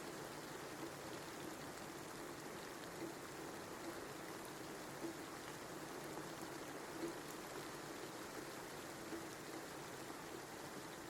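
Steady rain, a soft even patter with a few louder single drops landing every second or two.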